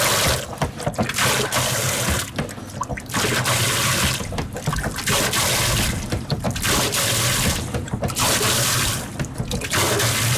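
Water gushing from the discharge hose of a freshly overhauled manual bilge pump and splashing onto a fibreglass cockpit floor, in repeated surges about every second and a half. The pump is delivering water from its first strokes, a sign it is back in working condition.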